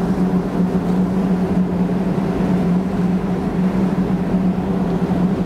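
LCAC air-cushion landing craft running at high speed, its gas turbines and ducted propellers making a steady drone that holds one low pitch over a wash of noise.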